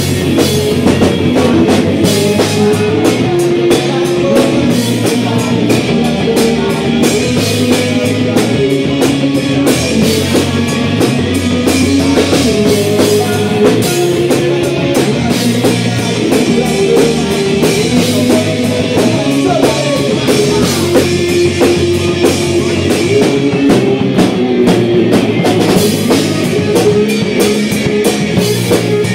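Live rock band playing loudly and without pause: electric guitars through amplifiers, bass guitar and a drum kit with steady cymbal and drum hits.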